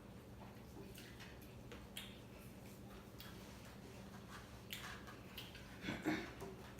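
Faint eating sounds: scattered small clicks and smacks of chewing food, with a louder cluster about six seconds in, over a faint steady hum.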